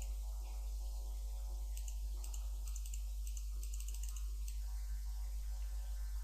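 Steady low electrical hum on the recording, with a run of faint, rapid clicks at a computer about two to four and a half seconds in as parameters are adjusted.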